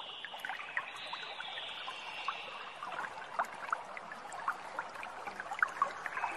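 Water trickling and dripping at a riverbank, with many small scattered plinks, over a steady high-pitched drone of insects.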